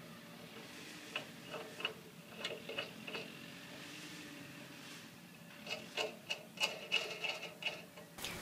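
Faint scattered clicks and light rubbing of a part being fitted back into place by hand on a portable generator, in two short clusters about a second in and again near the end.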